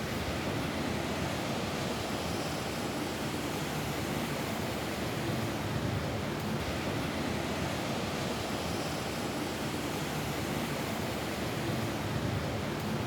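Steady rain falling on a roof, an even, unbroken hiss with a low rumble beneath it.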